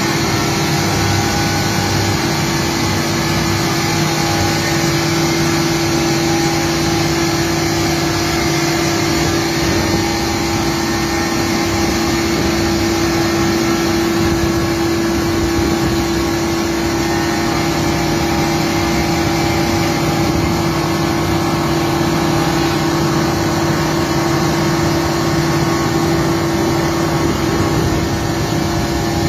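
Macaroni extruding machine running: a loud, steady mechanical hum with one constant tone and no changes.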